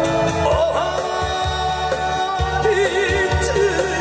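A man singing with vibrato into a microphone over a recorded accompaniment with a pulsing bass line, played through the stage PA speakers.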